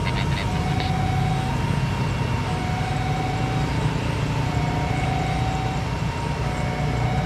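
Steady low engine rumble from a twin-jet airliner's engines running on the runway, mixed with motorbikes passing close by. Over it, a faint high tone switches between two pitches about once a second.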